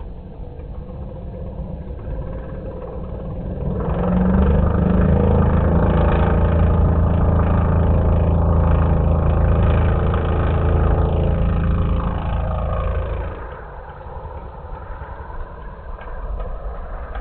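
The engine of a radio-controlled scale Cessna 150F model running at take-off power. It grows louder about four seconds in as the model rolls past and lifts off, holds a steady loud note, then drops in pitch and fades near the end as the model climbs away.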